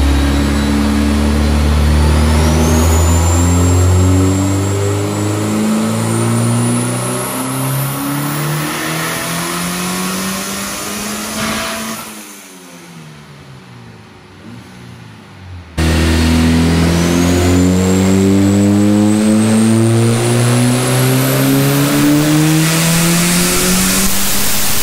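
Nissan SR20DET turbocharged inline-four on a chassis dyno making a full-throttle pull. The revs climb steadily with a rising whine for about twelve seconds, then drop sharply and coast down more quietly. A few seconds later the engine is back at full load, climbing again in a second pull that falls off near the end.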